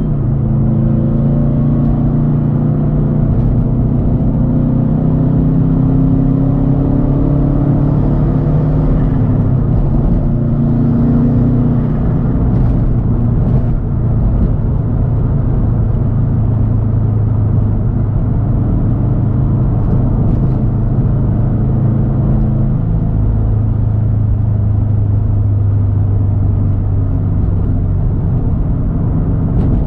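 2013 Subaru WRX STI's turbocharged flat-four engine running loudly through a Tomei Expreme Ti turbo-back exhaust while the car is driven. The engine note is steady, with deep exhaust rumble, and its pitch shifts a couple of times as engine speed changes.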